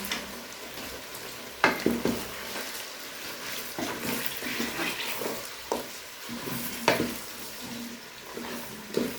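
A cooking spoon stirring beef, tomatoes and kale (sukuma wiki) in a pot over a steady sizzle, knocking sharply against the pot several times.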